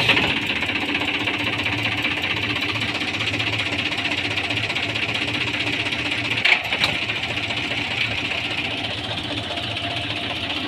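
Tractor diesel engine running steadily, turning a PTO shaft that drives a pulley-driven generator on a stand. Two short, sharp clicks come about six and a half seconds in.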